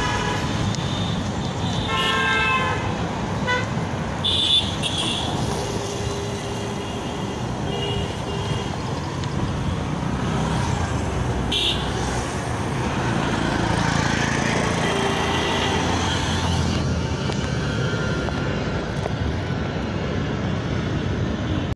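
Busy road traffic heard from a moving rickshaw: a steady rumble of engines and tyres, with vehicle horns honking several times.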